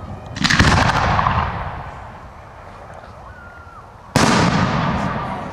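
Display fireworks bursting overhead: a cluster of crackling bangs about half a second in, then a single loud bang near the end, each echoing away over a second or more.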